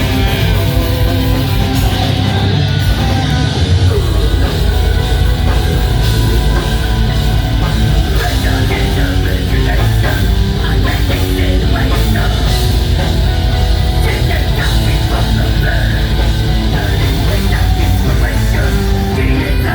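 Loud rock music from a band playing: electric guitars over a drum kit, continuous and dense.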